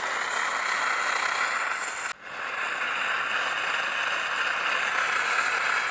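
SVEA 123R-style brass liquid-fuel camp stove burning with a steady hiss under a pot of water, with a brief dropout about two seconds in.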